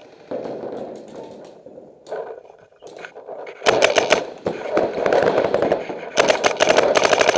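Paintball markers firing rapid strings of shots, starting about halfway through and coming in quick bursts until the end.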